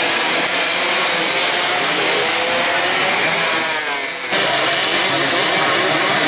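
Racing motorcycle engines at high revs, a buzzing mix of several bikes with pitch rising as they accelerate. About four seconds in the sound changes suddenly to a grid of race bikes revving together on the start line.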